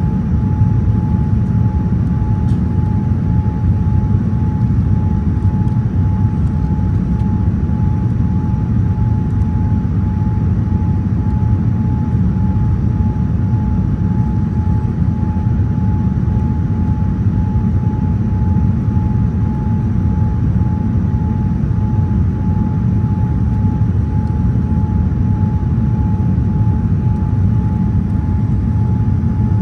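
Steady low roar of a Boeing 787 Dreamliner's jet engines and rushing air, with a thin steady whine above it.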